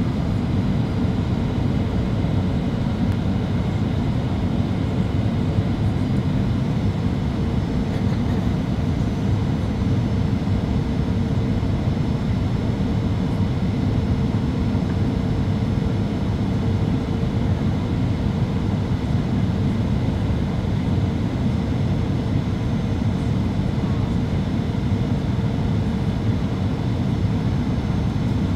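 Steady cabin noise inside a Boeing 737-800 on descent: airflow over the fuselage and the hum of its CFM56-7B turbofans, with a steady mid-pitched tone over a deep rumble.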